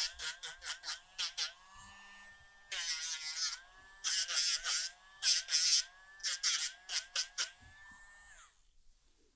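Rotary nail grinder whining as it sands a dog's toenails. Its pitch dips and a rasping grind sounds each time the sanding drum is pressed to a nail, several touches in quick runs. It stops near the end.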